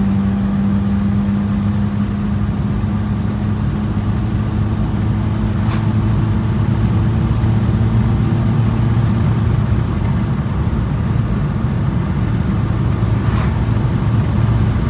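VW Passat B2's 1.6-litre four-cylinder diesel running on straight sunflower cooking oil, heard from inside the cabin while driving: a steady engine drone over road rumble.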